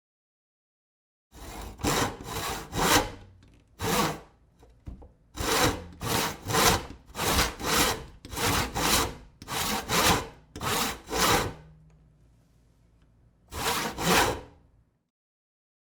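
Sawing: back-and-forth rasping strokes, about two a second, starting after a second of silence, with a pause of about two seconds near the end before a final pair of strokes.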